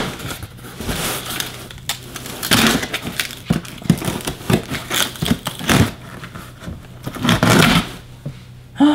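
A cardboard box and its packaging being handled and opened by hand, with irregular crackling and crinkling.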